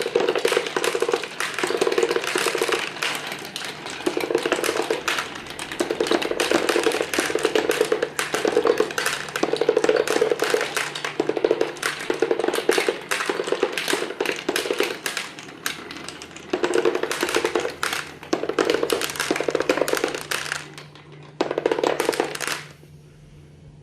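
Marbles rolling and clattering down a marble run track: a dense, continuous stream of clicks and rattles over a rolling rumble that comes and goes. It stops suddenly near the end.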